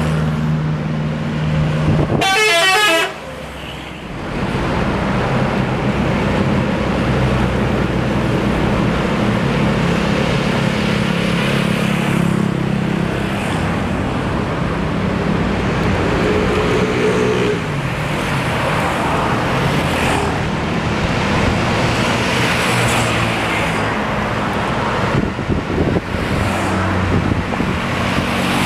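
Tour buses running as they pull out, sounding their multi-tone "telolet" musical horns. There is a quick warbling horn burst about two seconds in, and a held horn note that slides down a little past the middle.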